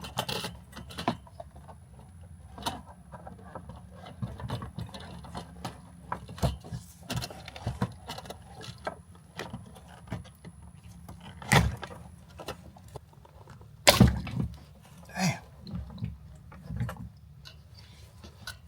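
Scattered knocks, clicks and rustles of hands working a car's fuel pump assembly loose from the tank opening, over a low steady hum, with the loudest knock about 14 seconds in.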